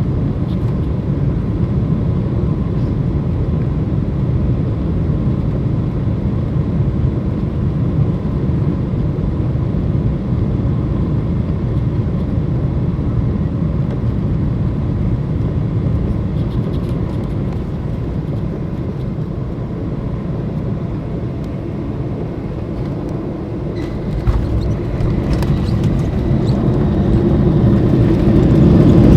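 Cabin noise of a Boeing 737-900 on landing: a steady low drone of its CFM56 engines and the airflow, then a thump a few seconds before the end as the wheels touch down. The noise then swells into a loud roar as the engines spool up for reverse thrust.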